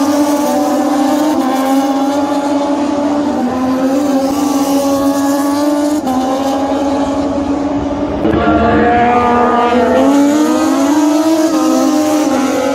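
Racing motorcycle engines running at high revs on the circuit, their pitch shifting in steps. About eight seconds in they get louder and the pitch rises.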